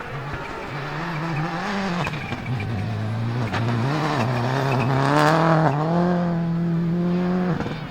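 Subaru Impreza S7 WRC's turbocharged flat-four rally engine accelerating hard, its pitch climbing and dropping back through several gear changes. It is loudest about five seconds in, holds a high steady note, then stops abruptly near the end.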